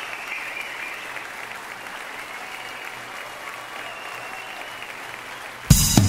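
Theatre audience applauding steadily, with faint whoops in the clapping. Near the end, loud drum-kit music cuts in abruptly.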